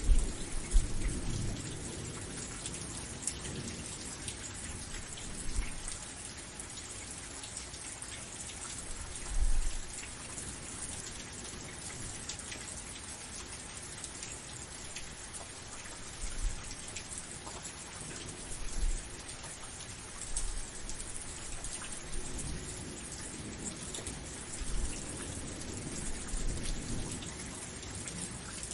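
Steady rain pattering, with brief low rumbles now and then, the strongest near the start and about ten seconds in.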